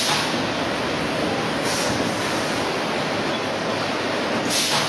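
Core veneer composer machine running in a plywood line: a steady, loud mechanical din, with a short hiss rising above it twice.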